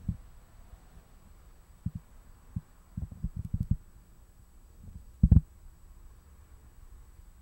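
Scattered low, dull thumps and knocks: a quick cluster about three seconds in and the loudest one about five seconds in, over a faint steady hum.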